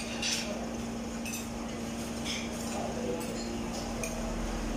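Spoons and forks clinking against plates as people eat: several short clinks spread through, over a steady low hum.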